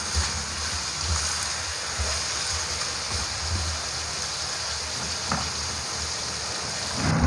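Water poured from a metal bowl into a hot wok of chicken in soy sauce, hissing steadily as it hits the pan, with a light knock about five seconds in.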